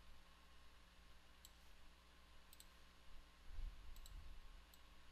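Faint computer mouse clicks, a few single clicks and two quick double clicks, over quiet room hum. A soft low thump comes about three and a half seconds in.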